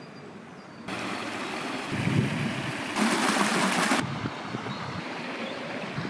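Steady rushing outdoor background noise with no distinct pitch. It jumps abruptly in level and tone about a second in and again near two, three and four seconds in, and is loudest and hissiest between the third and fourth second.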